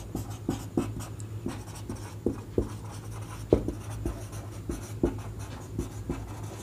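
Handwriting: a writing tool scratching and tapping on the writing surface in short, irregular strokes, over a low steady hum.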